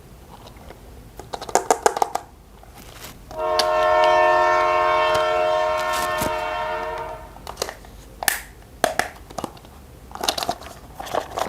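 Several clicks and rattles of plastic toy parts, then a toy train's horn sounding one steady note for about four seconds, fading toward the end, followed by more scattered clicks and knocks.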